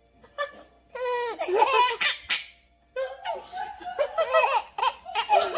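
A baby of about three and a half months laughing out loud in high-pitched bouts: one starting about a second in, a short break, then laughing again.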